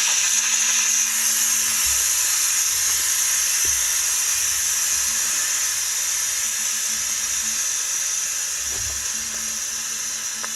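Compressed air hissing out of the open condensate drain valve under a Meec Tools 24 L compressor's air tank. The hiss is steady and slowly fades as the last pressure in the tank bleeds off.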